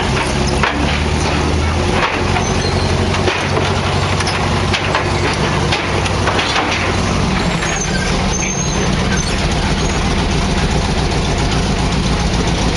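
M36 tank destroyer's engine running under load as it climbs a ramp onto a tank transporter trailer, with its steel tracks clanking and knocking against the trailer several times. The engine's note changes about seven seconds in, as the tank tips level onto the deck.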